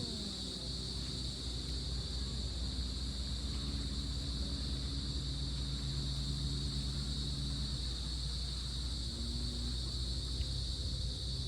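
Crickets chirring in a steady, unbroken high chorus over a low rumble of wind. A faint low engine hum drifts in and out through the middle.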